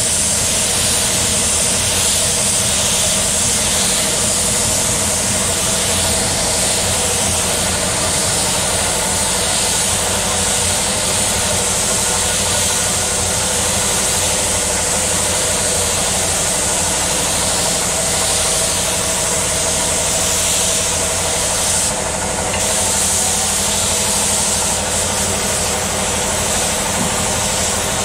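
Gravity-feed spray gun hissing steadily as it sprays clear coat onto a motorcycle helmet, over a steady mechanical hum. The spray hiss drops out briefly about three-quarters of the way through, then resumes.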